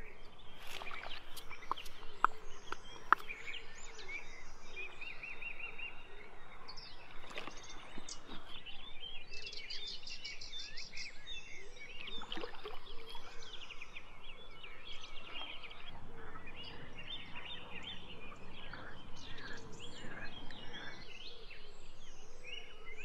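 Outdoor bird chorus: many songbirds chirping and trilling at once, with a couple of sharp clicks about two and three seconds in.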